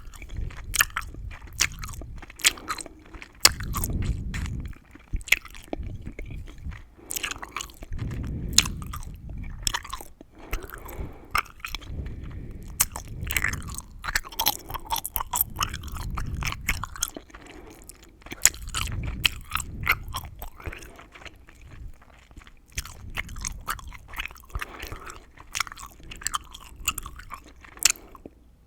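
Gum chewing close to the microphone, full of sharp crackles and clicks, with a fuller, deeper stretch of chewing about every four seconds. It stops just before the end.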